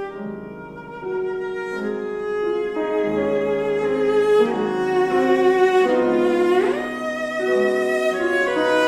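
Cello playing a slow, singing melody with vibrato over Steinway grand piano accompaniment. About two-thirds of the way through, the cello slides up to a higher held note.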